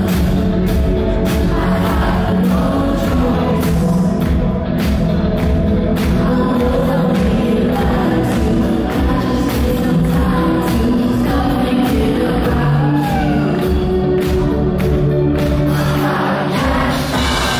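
Live band playing through a PA: a woman singing lead over electric guitar, drums and keyboards, loud and steady.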